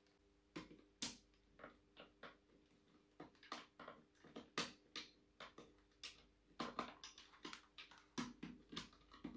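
Irregular clicks, taps and knocks of hard parts being handled close to the microphone, about two a second, as the black scissor-arm microphone stand and mount are worked with, over a faint steady hum.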